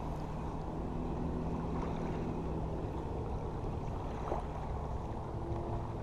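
Steady low rumble of wind and water with a faint, even engine hum.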